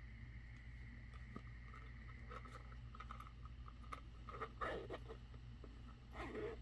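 Faint handling noises, light rustles and taps, over a steady low hum.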